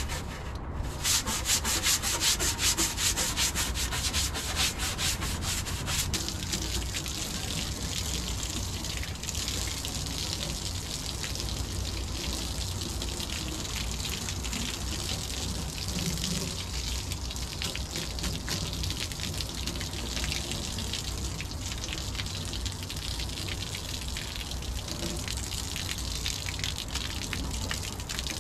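Stiff white deck brush on a pole scrubbing a soapy non-skid boat deck in quick back-and-forth strokes; later water from a hose runs and splashes onto the deck.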